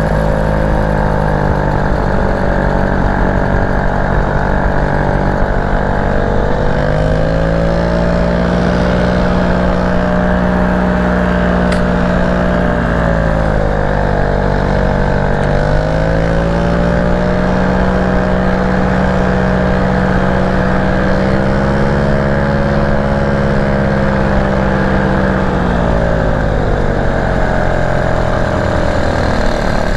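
Paramotor engine and propeller running steadily in flight. The engine speed rises about seven seconds in, dips and recovers in the middle, and falls back near the end.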